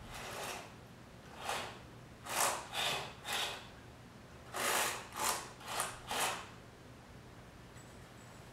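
Small robot car's electric drive motors whirring in about nine short spurts, each under half a second, as it is driven in jabs with PWM speed control from a game controller.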